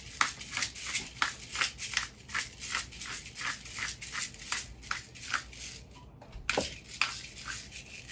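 Hand-twisted pepper mill grinding peppercorns over a bowl: a steady run of short crunching clicks, about three a second, that stops about six seconds in, followed by one louder knock.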